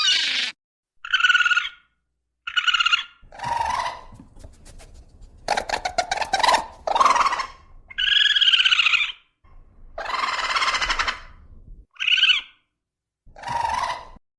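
A series of about ten short animal calls, each under a second, some with a clear pitch, separated by brief moments of silence.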